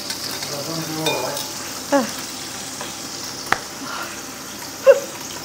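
Oil sizzling steadily under frying tofu in a pan, with a utensil stirring in a glass jug on the hob early on. A few short sounds falling in pitch cut in, the loudest near the end, and there is one sharp click midway.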